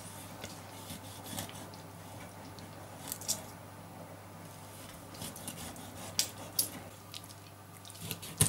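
Kitchen knife cutting scoring slashes into a whole raw carp, with faint scattered crunching scrapes as the blade goes through the scales and skin, over a low steady hum.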